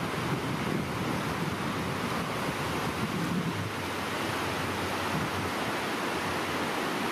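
Small waves breaking and washing up on a sandy shore: a steady, even rush of surf, with a low rumble of wind on the microphone.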